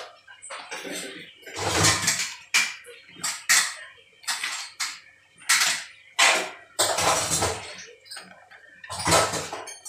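Spoon stirring jaggery water in a non-stick pot, knocking and scraping against the pot's sides and base in about a dozen irregular strokes, with the liquid swishing.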